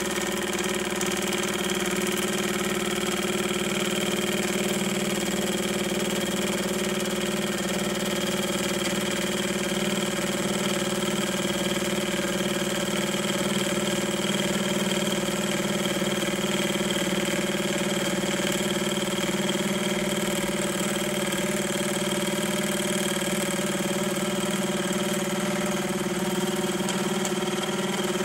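Milling machine running steadily with an even hum, its 10 DP gear cutter milling the last tooth space of a 13-tooth gear.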